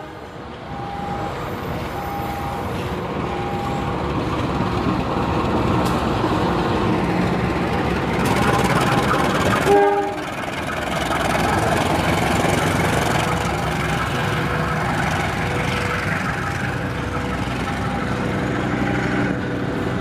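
A train running past on the rails, a steady rumble that swells toward the middle, with a short blast of the locomotive's horn about halfway through. A short tone repeats about once a second at the start and again near the end.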